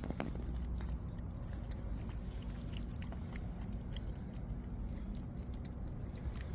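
Street cats eating dry cat food: faint, irregular crunching and small ticks of chewing over a low steady rumble.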